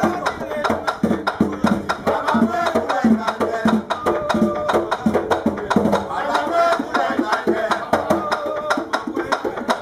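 Danmyé music: a hand-played tanbou bèlè drum, beaten by a drummer sitting astride it, with many sharp, rhythmic clicks and singing voices over it.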